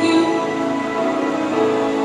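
Music with long held notes, part of the song played for a dance.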